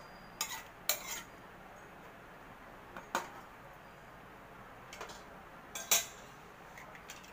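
Metal ladle stirring gravy in a pressure cooker, knocking and clinking against the pot's rim and sides in a few scattered strokes, the loudest about six seconds in.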